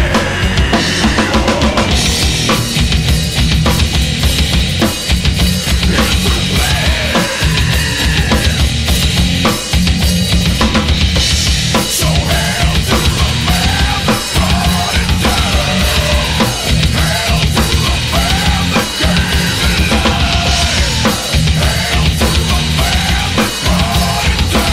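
Live heavy metal band playing loudly: distorted electric guitars over a drum kit with a steady kick drum and snare, heard from the crowd.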